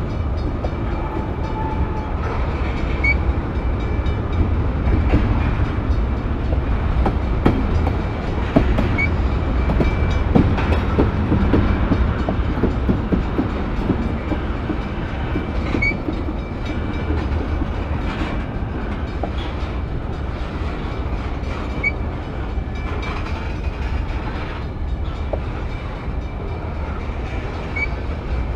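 Freight train cars rolling past at close range, tank cars followed by covered hoppers: a steady low rumble of the wheels on the rails, with clattering over the rail joints strongest around the middle. A faint steady high ring runs underneath, with a small chirp about every six seconds.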